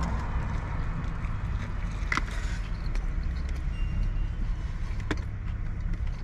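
Steady low vehicle rumble, with a few faint clicks.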